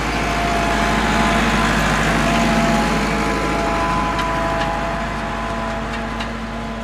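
Bull Power 577 tractor's 76-horsepower diesel engine running steadily under load as it pulls an 18-disc harrow through damp soil. It grows louder as the tractor passes close, around two to three seconds in, then fades a little as it pulls away.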